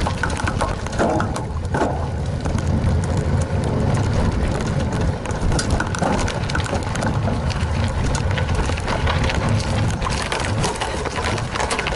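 Trek 920 gravel bike riding along a dirt trail: tyres crunching over dirt and loose gravel, with many small rattles and clicks from the bike. A heavy, steady wind rumble sits on the handlebar-mounted microphone.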